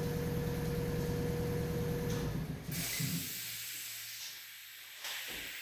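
Air compressor running, then shutting itself off at its pressure switch about two and a half seconds in, having reached cut-out pressure, followed by a short hiss of air as it unloads. A couple of faint knocks follow near the end.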